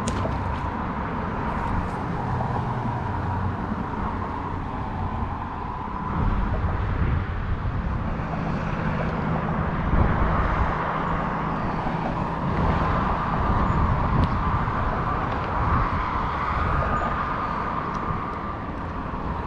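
Road traffic on the nearby bridge: a steady wash of car and tyre noise with a low rumble that swells and fades as vehicles pass, over a thin steady high tone. A small splash right at the start as a released fish drops into the water.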